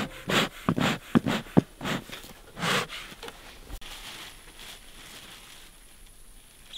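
A quick run of about eight short, noisy puffs and rustles over the first three seconds as beekeeping gear is handled, then only faint rustling.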